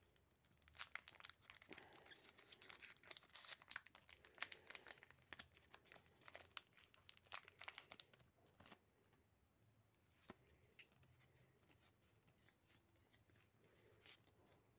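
Foil booster-pack wrapper torn open and crinkled by hand: a dense crackle for the first eight seconds or so, then only a few faint clicks as the cards are handled.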